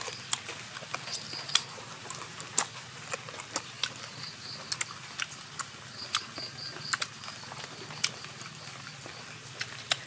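Close-up chewing of lettuce wraps with grilled pork ear: irregular sharp crunches, clicks and mouth smacks, several a second.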